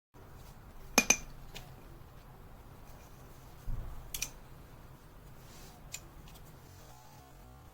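Metal striker scraped and knocked against a ferrocerium fire-starter rod: two sharp metallic clicks about a second in, then a quick high scrape near four seconds and a few light ticks.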